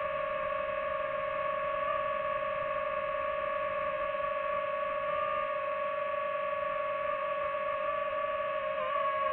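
DJI FPV drone's motors and propellers whining at a steady pitch over a rushing hiss, the pitch dipping slightly near the end.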